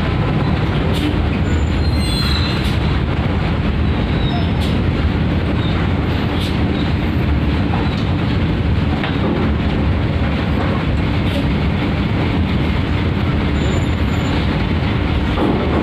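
Large coach bus rolling slowly off a ferry's steel loading ramp: a steady low diesel rumble with occasional clanks, and a brief high squeal about two seconds in.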